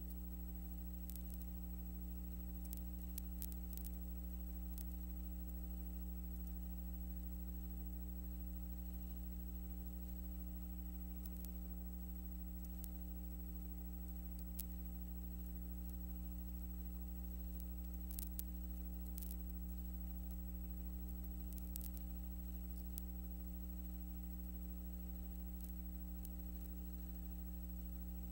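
Steady low electrical hum, several even tones held unchanged, with faint scattered clicks and ticks. It is the noise of the transfer, since the film footage itself has no soundtrack.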